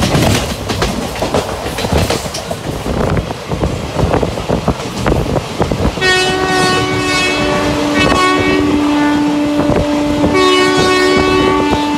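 Passenger train running, its wheels clattering over rail joints. About halfway through, a long, loud multi-tone horn sounds and is held to the end over the train noise.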